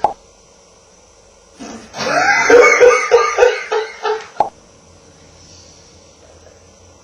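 Loud burst of laughter about two seconds in, breaking into a run of quick 'ha' pulses, about three a second, that stops after roughly two and a half seconds.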